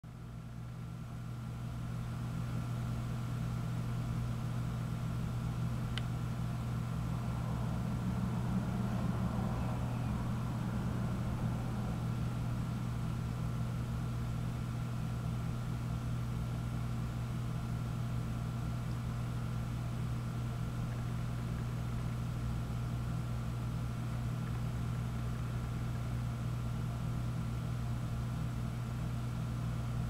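A steady low mechanical hum with a few fixed tones, like an engine running, and one sharp click about six seconds in.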